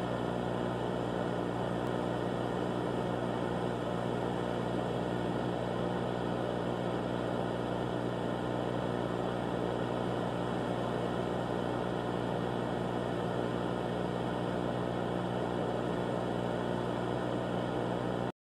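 A steady, dense droning hum with a noise wash over it, unchanging in level, which cuts off abruptly to dead silence near the end.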